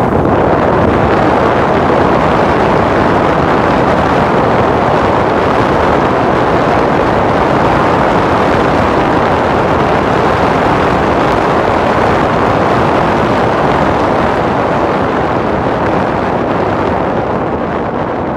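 Steady, loud rumbling noise of wind on a phone microphone mixed with the hiss of street traffic, easing slightly near the end.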